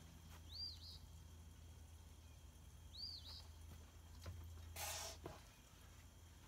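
Near silence over a faint low hum. A bird calls twice, each call a quick pair of arching high notes, and a short hiss sounds about five seconds in.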